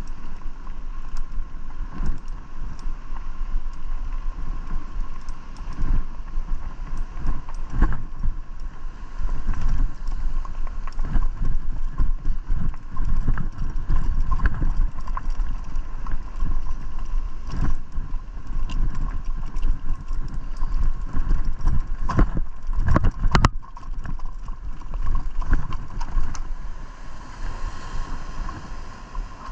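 Electric bike rolling over a gravel path: the tyres crunch and the bike rattles and knocks over the stones, over a low rumble of wind on the microphone. It gets quieter near the end as the bike slows.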